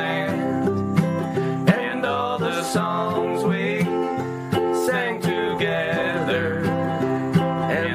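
Music with plucked acoustic guitar and a sliding melody line over a steady bass.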